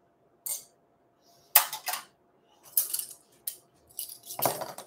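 Fabric and a towel being handled and adjusted by hand: a series of short rustles and light clicks, the fullest one near the end. No sewing machine is running yet.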